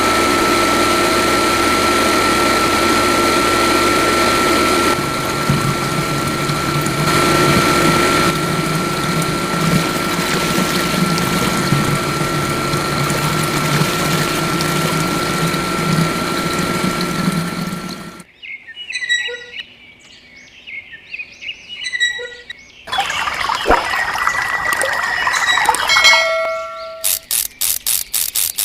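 Small electric water pump running steadily with water pouring, a thin steady whine over a rushing hiss; it cuts off suddenly about two-thirds of the way through. Scattered chirps and clicking follow, ending in a fast run of even clicks.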